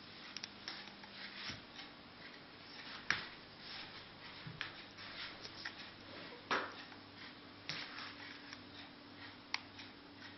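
Irregular small clicks and rubbing from an Xbox 360 wireless controller being handled and its buttons pressed, a few sharper clicks standing out, the loudest a little past the middle. A faint steady hum runs underneath.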